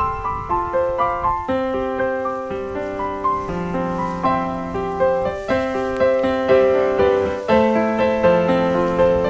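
Background music: a piano playing a gentle melody with chords, notes struck at a steady pace.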